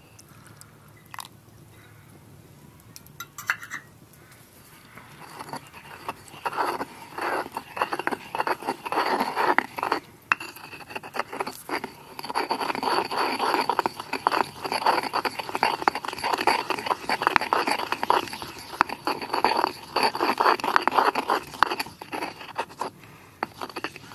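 Stone pestle stirring fast round a stone mortar of oily herb sauce: a rapid, continuous run of scrapes and wet sloshes against the bowl that starts about five seconds in.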